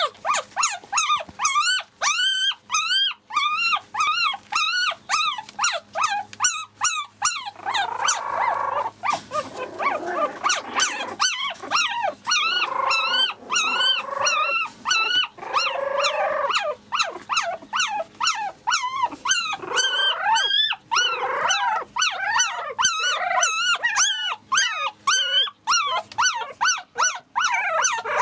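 Month-old Biewer Yorkshire terrier puppies whining and squeaking in a continuous stream of short, high, arching cries, about two a second. For a stretch in the middle, several puppies cry over one another at once.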